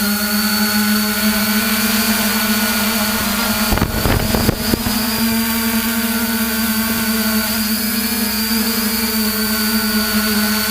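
Multirotor drone's propellers humming at a steady pitch, heard close up, with a short spell of knocks and buffeting about four seconds in.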